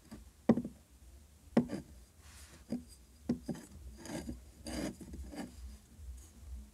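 Fingers tapping and scratching the surface of a small unglazed terracotta clay pot. Two sharp taps come in the first two seconds, then lighter taps and rasping scratches.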